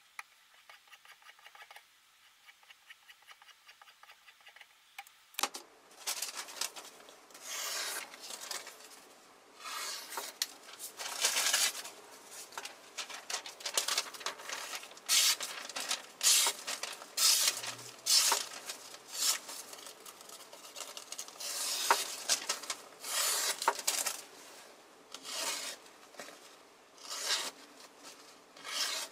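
Paper being sliced on a freshly sharpened knife edge. A run of separate slicing strokes through the paper starts about five seconds in, each a short loud rustling hiss, with paper-handling rustle between them. Before the cutting starts there is only faint rapid ticking.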